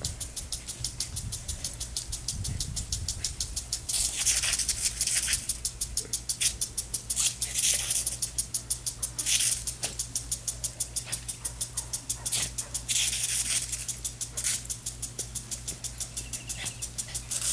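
Impact sprinkler ticking steadily, about five ticks a second, with its spray hissing in loud surges every few seconds as the jet sweeps past. A few low dog growls come in the first seconds.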